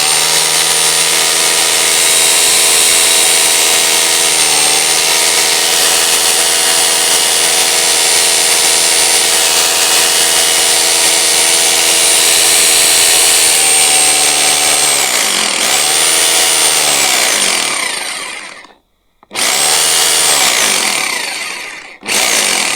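JCB 21RH1050W 1050-watt rotary hammer drill running at full speed, its motor pitch sagging and recovering a few times. It winds down and stops about nineteen seconds in, then is triggered twice more in short bursts.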